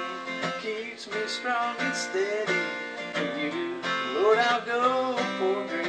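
A song with strummed acoustic guitar and a voice singing a melody.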